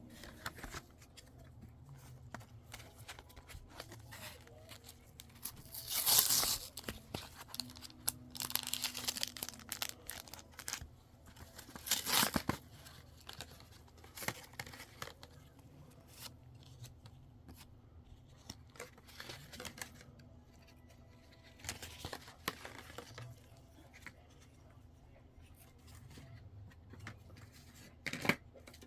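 Pokémon card pack packaging being torn open and crinkled, in several loud bursts (the loudest about six and twelve seconds in), with softer rustling of cards and wrapper between them.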